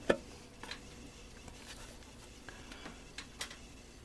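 Light metallic clicks and taps of transmission parts being handled: the low roller housing being worked by hand into a 4L60E case, with the sharpest knock just at the start and a handful of scattered lighter ticks after it.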